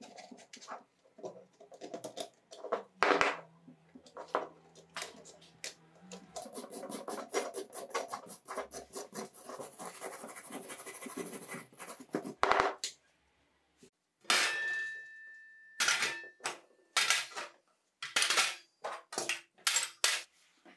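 A wire brush scrubs grime off an aluminium moped engine cover, with a couple of loud knocks, for about twelve seconds. Then metal engine parts clank one at a time into a steel pan, the first one ringing briefly.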